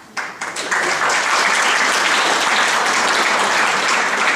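Audience applauding: a few scattered claps at the start fill out within about a second into steady, dense applause.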